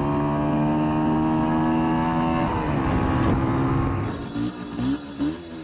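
Honda XL80S's 80cc single-cylinder four-stroke engine running steadily as the bike is ridden along a road. About two and a half seconds in the engine note falls and turns rough, and about four seconds in it cuts to a quieter, different sound.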